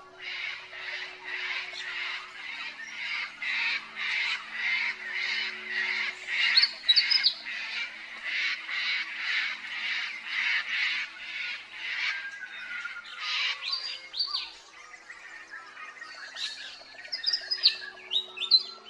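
Birds calling at dawn: a harsh squawking call repeated steadily about two to three times a second, stopping near the end. Short, sharp whistled notes from other birds cut in now and then.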